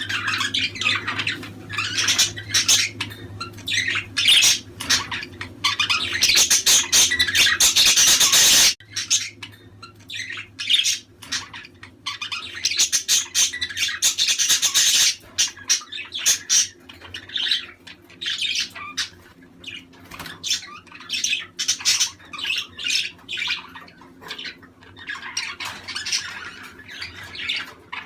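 A group of budgerigars chattering, warbling and squawking all at once in busy, overlapping calls. The chatter is loudest in two stretches, and the first of them cuts off abruptly about a third of the way in.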